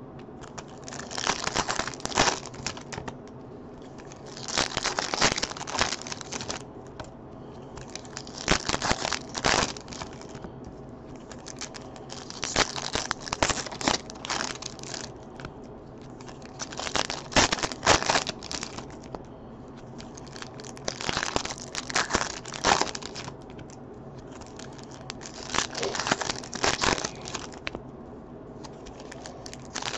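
Foil wrappers of 2015 Topps Chrome football card packs being torn open and crinkled, one pack after another: about seven bursts of crackling, roughly every four seconds.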